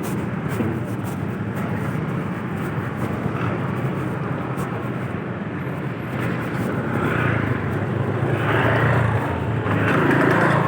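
A vehicle engine running steadily under continuous rushing noise, swelling somewhat louder in the second half.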